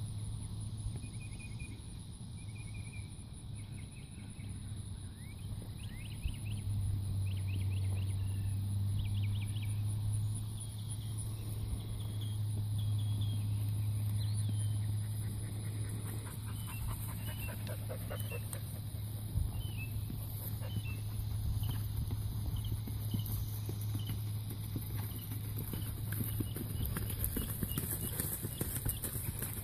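A horse's hoofbeats on sandy grass as the mare is ridden at a steady gait, over a steady low hum.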